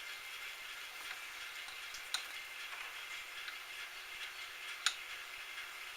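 Metal lathe running with a steady hiss, a few light ticks and two sharper clicks, one about two seconds in and one near the end.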